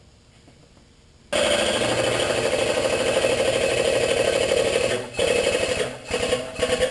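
Shop press pump running as the ram presses a bearing into an aluminium mounting plate: a loud, rapid rattling that starts suddenly about a second in, runs steadily for about four seconds, then comes in short bursts.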